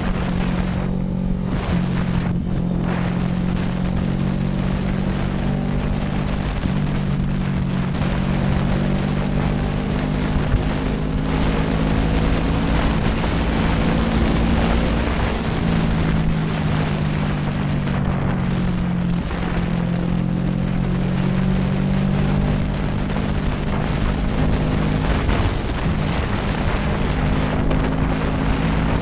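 CFMoto NK400 motorcycle's parallel-twin engine running steadily under way, with wind rushing over the microphone; the engine note shifts in pitch a few times as the throttle changes.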